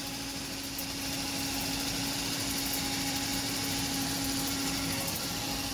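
Electric automatic water pistol firing continuously, its small battery-powered motor and pump running with a steady hum.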